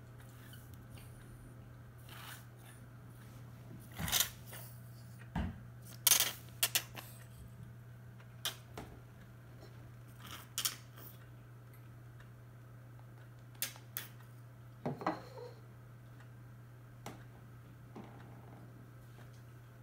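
Small plastic toys and objects handled and set down on a tabletop: scattered light clicks and knocks at irregular intervals, busiest about four to seven seconds in and again around fifteen seconds, over a steady low hum.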